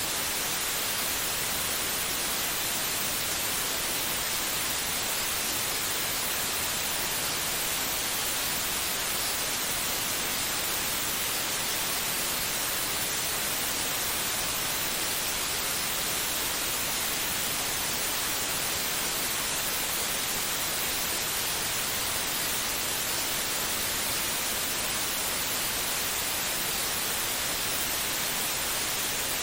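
Steady white noise: an even, unbroken hiss with no rhythm or change.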